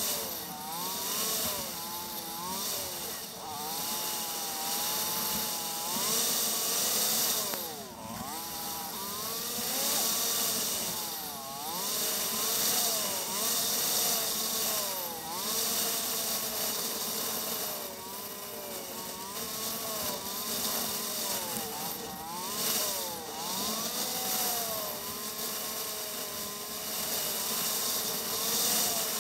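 Motorcycle engine running under a rider's throttle, its pitch rising and falling again and again as the bike accelerates and eases off, with a steady rush of wind across the camera microphone.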